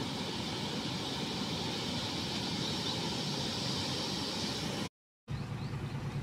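Rushing floodwater of an overflowing river: a steady roar of fast, churning water. It cuts out for a moment about five seconds in and returns deeper.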